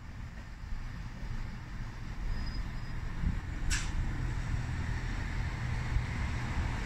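Diesel train approaching, its engine rumble and running noise growing steadily louder. A single sharp click about halfway through.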